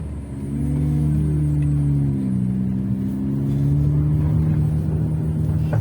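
Motor vehicle engine running while under way, its pitch shifting in the first half and then holding steady.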